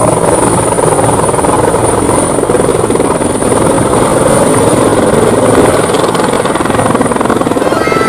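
Military utility helicopter hovering just off the ground: a loud, steady rapid beat of the main rotor blades over the turbine's running, with a thin high whine on top.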